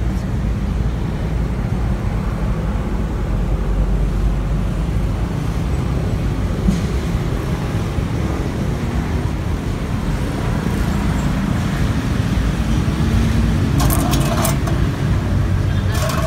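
Steady low rumbling background noise, with two short clattering sounds near the end.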